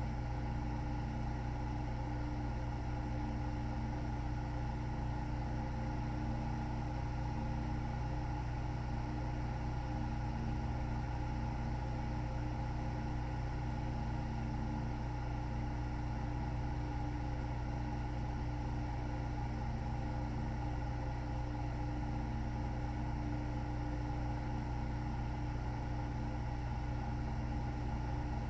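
A steady low hum with several fixed tones, unchanging in level and pitch; no breathing or snoring rhythm stands out.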